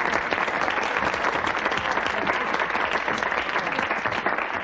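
Audience applauding: many hands clapping in a dense, steady patter that thins a little near the end.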